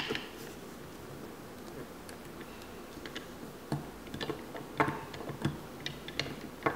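Scattered light plastic clicks and taps from a toy truck's hinged brick-mould lid and body being handled while Play-Doh is loaded in. There is little for the first three seconds, then irregular clicks, with a few close together about five seconds in.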